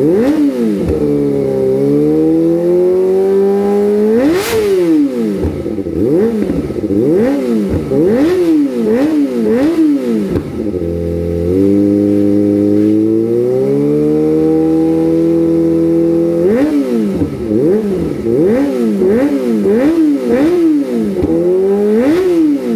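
Kawasaki ZX-25R's 249 cc inline-four revved at standstill through an Austin Racing aftermarket exhaust. It gives runs of quick throttle blips, about one a second, broken by two longer revs held for a few seconds with slowly climbing pitch, one a couple of seconds in and one about halfway. Sharp pops come between the blips.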